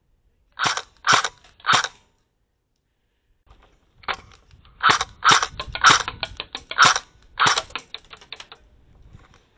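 Airsoft gun firing single shots: three sharp cracks about a second in, then a quicker string of shots mixed with smaller clicks from about four seconds in until near the end.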